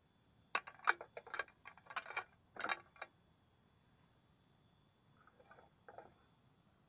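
Clear plastic compartment box being handled: a quick, irregular run of clicks and knocks for about two and a half seconds, then a few faint scratchy sounds near the end.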